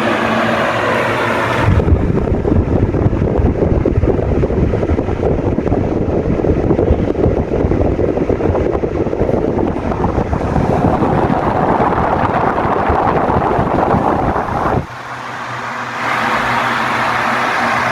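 Ventisol 50 cm table fan running, its air stream blowing on the microphone as a loud rumbling wind noise for most of the time. About fifteen seconds in the buffeting drops away, leaving the fan motor's steady hum and the rush of air from the blades.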